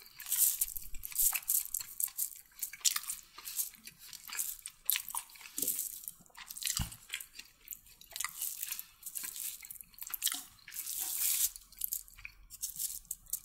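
Close-up chewing of a mouthful of chicken kottu: irregular wet clicks and crunches as the chopped roti, which is very hard, is bitten and chewed.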